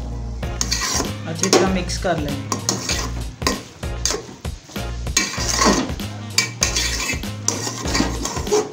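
A long-handled metal spoon stirring wet grated carrots in a large aluminium pot, scraping and clinking against the pot's sides and bottom in quick, irregular strokes.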